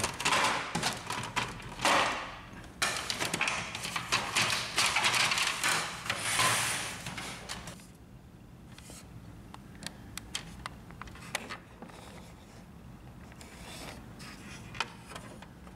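Plastic front cover of a Samsung ML-3310 laser printer scraping, rattling and clicking as it is worked onto its hinge mounts. The handling is busy through the first half, then dies down to a few light clicks.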